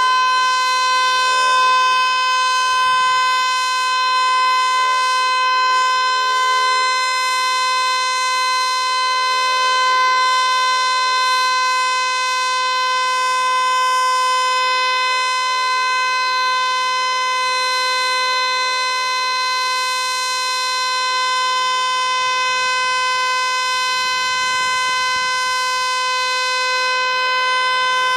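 Federal Signal Eclipse 8 electronic outdoor warning siren sounding a loud, steady alert tone that holds one pitch without rising or falling.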